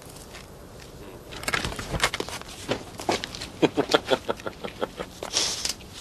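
A run of irregular knocks and clicks at a front door as it is unlocked and opened, with a short hiss near the end.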